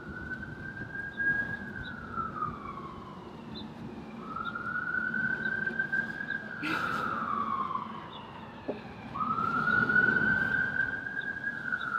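Emergency-vehicle siren sounding a slow wail, its pitch rising and falling about every five seconds, three cycles in all.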